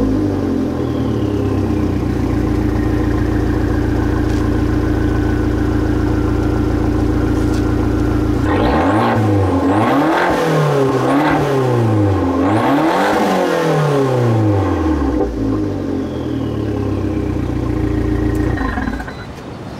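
Fiat 500 Abarth's 1.4-litre turbocharged four-cylinder idling through its sport exhaust, then revved four or so times in quick succession, each rev rising and falling back before it settles to idle again. The sound drops away near the end.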